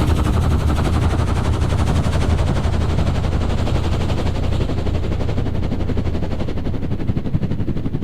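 Cat tracked loader running, its diesel engine and tracks making a loud, fast, even clatter with a deep rumble. The higher hiss fades after about five seconds.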